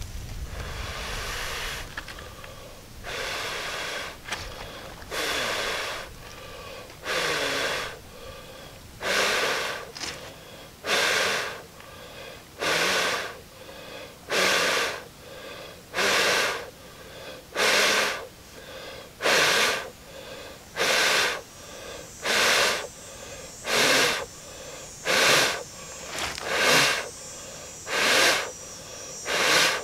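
A man blowing hard into a bird's nest tinder bundle to coax a char cloth ember into flame: about eighteen forceful breathy blows, the first few long, then shorter ones about every one and a half seconds.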